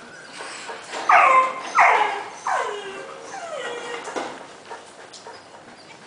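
A dog whining in four high cries about a second apart, each sliding steeply down in pitch, the first two loudest.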